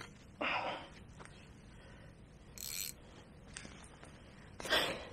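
A few short rustles and scrapes of gear being handled: one about half a second in, a brief hissing one in the middle, and another near the end.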